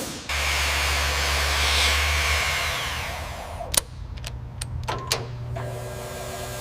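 A machine runs with a rushing hiss over a low hum for about three seconds and then fades. Several sharp clicks and knocks follow over a steady low hum.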